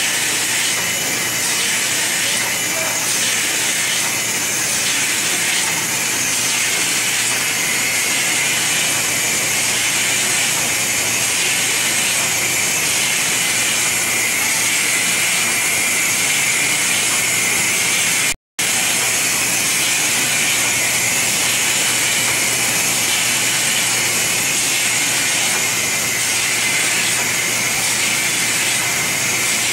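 Automatic cartoning machine running steadily: the conveyor and mechanism clatter with a hiss, and a pattern repeats about once a second with the machine cycle. The sound cuts out for an instant about two-thirds of the way through.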